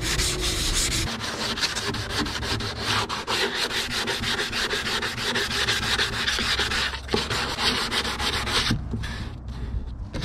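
Hand wet sanding of Alexseal 442 primer on a boat hull with a 320-grit sanding block: rapid back-and-forth rasping strokes. This is the final sand before paint, knocking back primer in curved spots a power sander can't reach.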